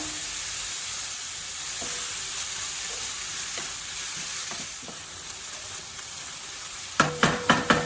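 Minced chicken frying in oil in a pan, a steady sizzle with a few faint stirring scrapes. Near the end come about five quick, sharp knocks.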